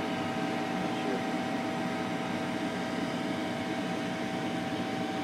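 A steady mechanical hum with a faint, steady whine, unchanging throughout.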